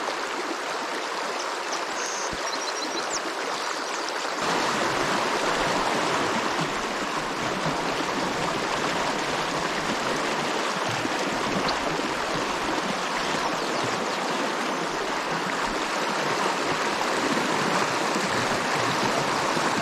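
Steady rushing of a river's current, a strong flow around a wading angler, turning a little louder and fuller about four seconds in.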